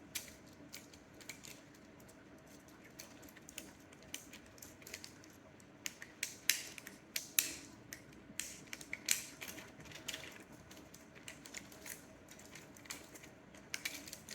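Small plastic clicks from a fidget cube's buttons and switches being worked, coming irregularly, with the loudest clicks bunched between about six and ten seconds in.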